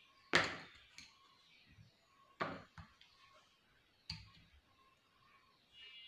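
Three sharp knocks, roughly two seconds apart, the first the loudest, each fading quickly.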